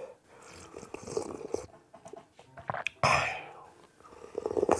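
Slurping of hot, spicy ramen broth from a wooden spoon, in several uneven slurps. The loudest comes about three seconds in, and another cluster just before the end.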